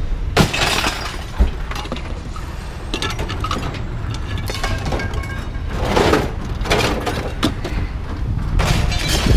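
Pieces of scrap metal thrown by hand onto a scrap pile, each landing with a crash and clatter: about half a second in, around three seconds, around six seconds and near the end. A steady low rumble runs underneath.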